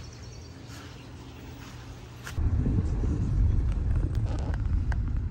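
Faint steady low hum, then about two seconds in a sudden cut to the loud low rumble of a car driving, heard from inside the cabin.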